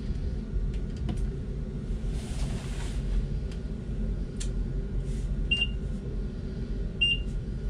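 Microwave oven keypad beeping as its buttons are pressed: two short high beeps about a second and a half apart in the second half, with faint button clicks, over a steady low hum.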